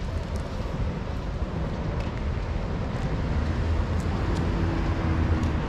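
Busy street ambience: a steady low rumble of road traffic, with a few faint clicks.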